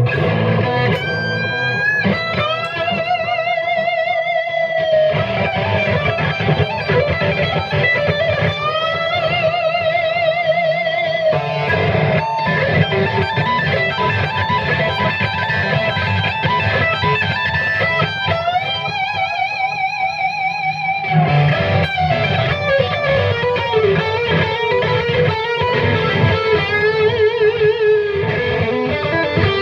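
Epiphone ES-339 semi-hollow electric guitar played through an amp, improvising loose lead licks. Several long held notes are shaken with wide vibrato.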